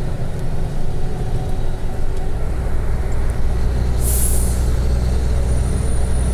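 Truck's diesel engine droning steadily, heard from inside the cab; the drone grows stronger about two seconds in. About four seconds in there is a short, sharp hiss of released compressed air, followed by a faint high whine.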